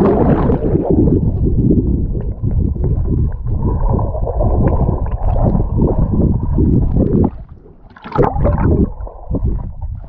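Muffled rushing and bubbling of water heard through an action camera held underwater while a swimmer dives and swims beneath the surface. The dense rush drops off about seven seconds in, with a short burst of bubbling about a second later.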